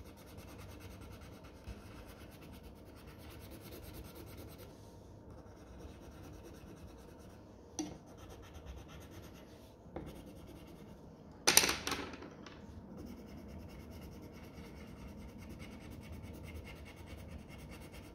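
Coloured pencil scratching on paper in quick back-and-forth shading strokes. Two faint knocks and, about two-thirds of the way through, a louder brief knock.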